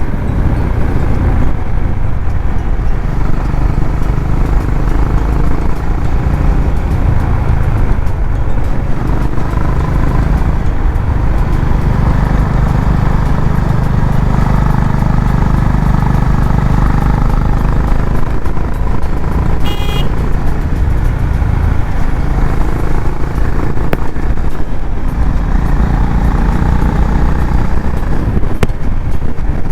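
Honda CB350RS's single-cylinder engine running steadily under way, its low exhaust rumble swelling a little in the middle of the stretch. A short high beep sounds once about twenty seconds in.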